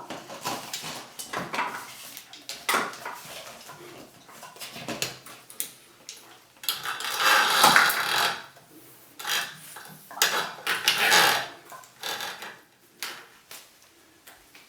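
Metal tools clinking, knocking and scraping against a Moen shower valve as the old cartridge is worked out with a cartridge puller; irregular strokes, with louder stretches of scraping about halfway through and again near two thirds of the way.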